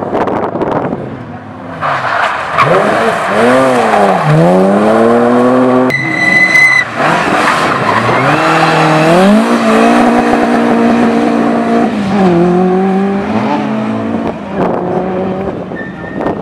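Rally car engine revving hard, its pitch climbing and dropping repeatedly through gear changes and lifts as the car is driven around a tight tarmac turn. A short, high tyre squeal sounds about six seconds in.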